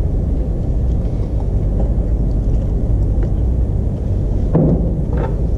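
Steady low rumble of background room noise, with a few faint ticks and a brief low sound near the end.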